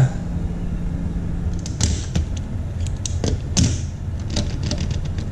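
Die-cast Hot Wheels cars being set into the lanes of an orange plastic starting gate: a run of light clicks and taps of metal and plastic on plastic, beginning about two seconds in.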